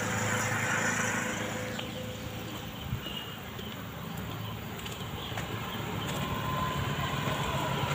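Engine hum and road noise from a moving vehicle. It eases slightly in the middle and builds again near the end, with a small knock about three seconds in.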